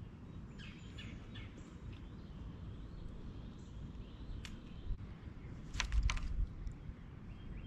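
Quiet outdoor ambience at the water's edge: a steady low rumble with faint bird chirps in the first second or two. A few sharp clicks come around four and a half and six seconds in.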